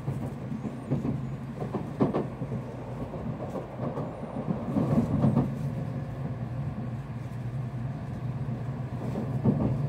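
Cabin noise of an N700S Shinkansen pulling into a station: a steady low hum from the running train, with a few short knocks and rumbles.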